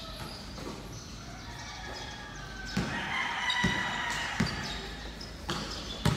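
Basketball bouncing on a hard court floor: a run of about five dribble thuds, starting about three seconds in.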